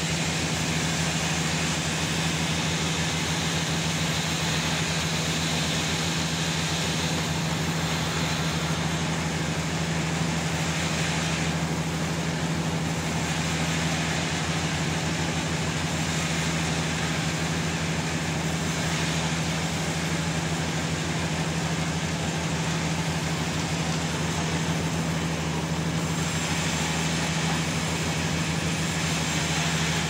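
Sawmill machinery running steadily: a constant low hum with a broad rushing noise over it that eases briefly twice.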